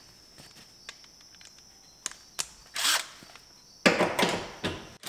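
Cordless impact driver hammering briefly on a truck's seat mounting bolt, a loud cluster of sharp strokes about four seconds in, after a few light clicks and a short rattle of tool handling.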